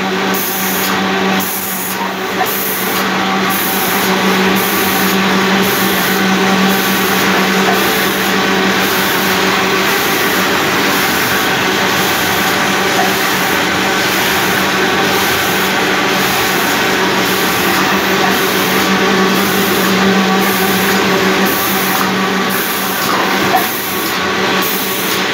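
SWAFM 1050 thermal laminating machine running while it feeds and laminates printed sheets: a steady mechanical running noise with a low hum, and a high hiss that pulses at an even rhythm a little faster than once a second.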